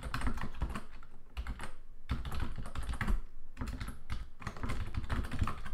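Typing on a computer keyboard: quick runs of keystrokes with a few brief pauses.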